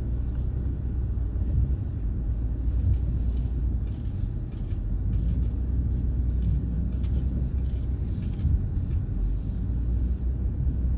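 Steady low rumble of a moving road vehicle heard from inside: engine and tyre noise on the road.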